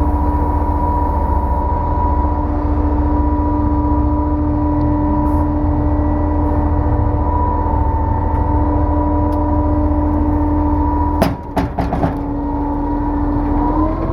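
2006 Putzmeister 32Z truck-mounted concrete pump running: a steady engine drone under a hydraulic whine. About eleven seconds in there is a sharp knock and a few clicks with a brief dip, then the whine comes back slightly higher in pitch.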